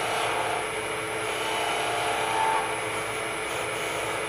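Wood lathe running steadily at about 1800 rpm, a constant motor hum, while a hand-held turning tool cuts a spinning wooden pen blank with a light hiss. A thin higher tone comes in briefly about two seconds in.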